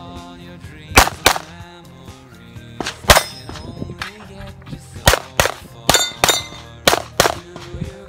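STI Edge pistol in .40 S&W firing about ten shots, mostly in quick pairs, over background music.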